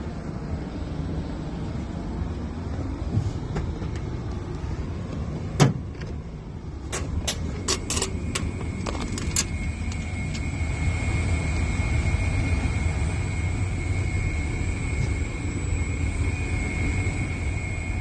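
Trane Voyager rooftop HVAC unit running with a steady low rumble. A sharp knock comes about five and a half seconds in, then a quick series of clicks and knocks, after which a steady high whine joins the rumble.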